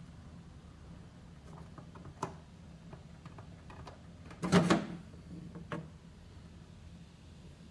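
A few sharp knocks over a steady low hum: a click about two seconds in, a louder, short clattering knock about halfway through, and another click soon after.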